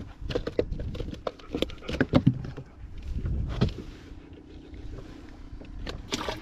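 Handling noise on a fishing boat: a run of soft knocks and thumps as a crappie flops on the carpeted deck and is picked up. A steady low hum follows, then a louder knock near the end as the live well lid is opened.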